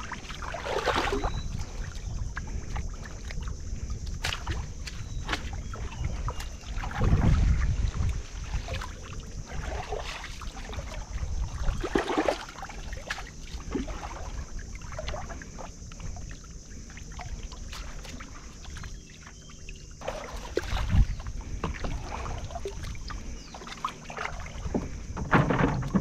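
Shallow river water splashing and sloshing as people wade and haul a fishing net through it, with irregular splashes a few seconds apart.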